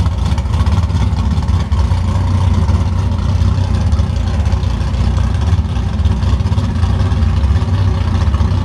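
2014 COPO Camaro drag car's V8 engine running at low speed as the car drives off, a steady, deep exhaust note.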